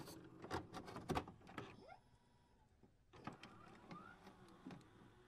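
Faint digital glitch sound effects: scattered sharp clicks and a few short chirping pitch glides, with a full silence for about a second near the middle.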